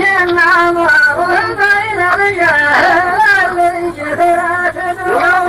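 Chanted singing of a line of verse in the drawn-out, wavering melody of a Saudi muhawara poetry duel, the notes held long and sliding between pitches.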